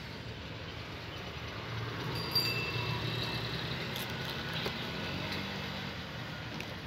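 Mahindra Xylo diesel engine idling steadily, with a few light metallic clinks and short ringing tones a couple of seconds in.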